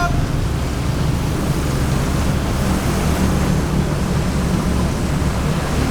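Heavy diesel road-paving machinery, an asphalt paver with a dump truck, running steadily: a constant low engine drone under a broad rushing noise.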